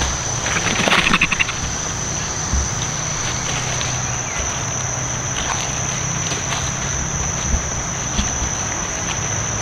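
Forest insects keep up a steady high-pitched drone. About a second in comes a brief burst of rapid pulsing clicks.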